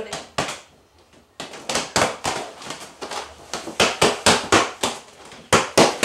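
Rubber balloon yo-yos being bounced on their elastic strings: a fast, uneven run of sharp slaps, several a second, as hands hit the balloons. The slaps begin after a near pause about a second and a half in.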